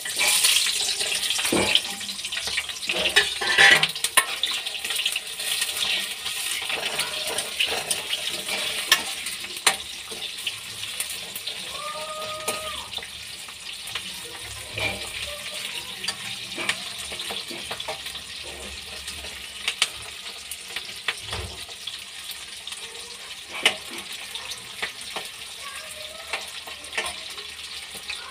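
Sliced onions dropped into hot oil in a steel kadhai, shallow-frying: a loud sizzle that starts suddenly and is strongest for the first few seconds, then settles into a steadier, quieter sizzle. Scattered clicks of stirring in the pan.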